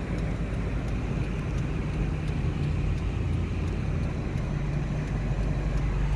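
Car engine and road noise heard from inside the cabin while driving, a steady low rumble.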